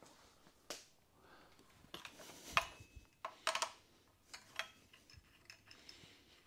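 Spanner clinking on the electric scooter's hub-motor axle nut as it is loosened: a handful of scattered metallic clicks and knocks, the sharpest about two and a half seconds in and a quick run of clicks a second later.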